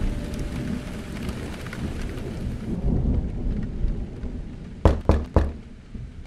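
Heavy rain with a low thunder rumble, which thins out about halfway through; then a fist knocks three times in quick succession on an apartment door.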